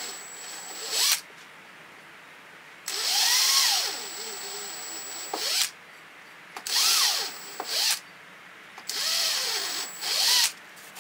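Handheld power drill boring pilot holes into a wooden board, its bit taped to mark the depth. It runs in four short bursts, each one spinning up and then winding down as the trigger is released, with short pauses between holes.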